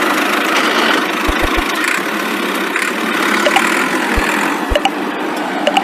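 Small tractor engine running steadily, with a few soft low thumps and light clicks.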